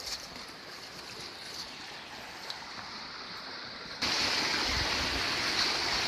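A low, steady rush of flowing water, then about four seconds in a louder, steady rush of a hot-spring waterfall starts abruptly.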